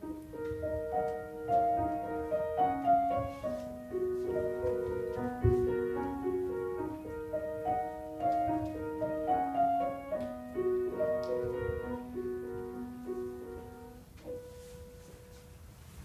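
Piano playing the instrumental closing bars of a song, melody over chords, ending on a single last note about fourteen seconds in that dies away.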